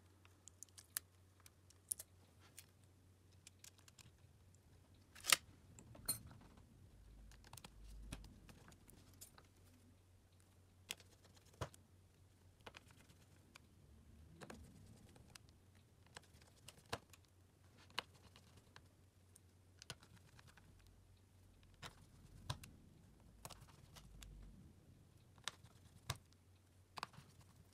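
Irregular light clicks and taps of small tools and phone parts being handled on a work surface, one sharper click about five seconds in, over a faint steady low hum.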